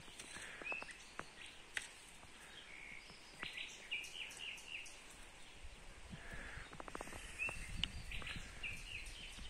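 Small birds chirping in short notes, with a quick run of several notes about three and a half seconds in and more chirps near the end. A low rumble sits underneath in the second half.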